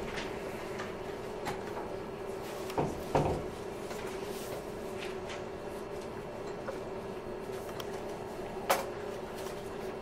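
A few knocks and clinks of small metal bowls and a metal serving tray being handled: a double knock about three seconds in and a single sharp one near the end, over a steady low hum.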